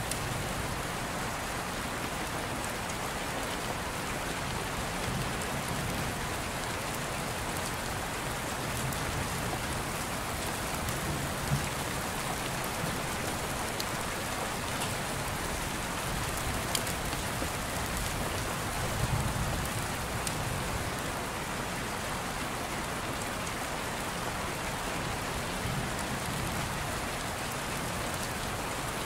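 Steady rain, an even hiss with soft low rumbles every few seconds.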